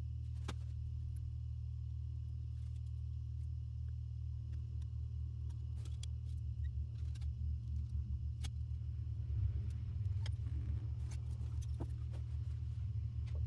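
Siphon hose drawing off the last of the silver nitrate electrolyte, sputtering and gurgling irregularly as it starts to suck air, over a steady low hum. Light clinks of the glass siphon tube against the glass beaker.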